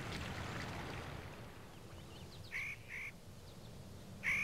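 Two pairs of short, nasal, quack-like bird calls, the first pair about two and a half seconds in and the second near the end, over a soft wash of water noise that fades in the first second or so.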